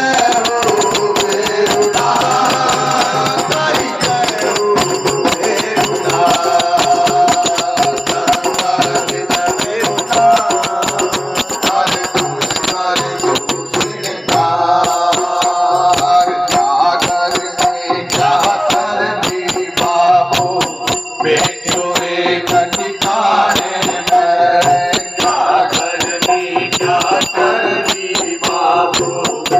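Devotional bhajan song, sung over fast, dense jingling percussion.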